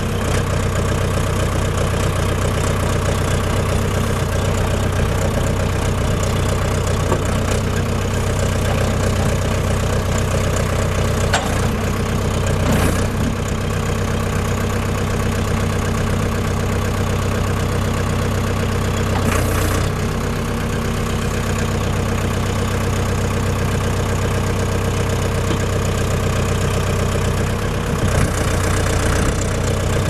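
The Ford diesel engine of a 1996 Ford 5550 backhoe runs steadily while the backhoe arm and extendable dipper stick are worked hydraulically. A few short knocks come in the middle.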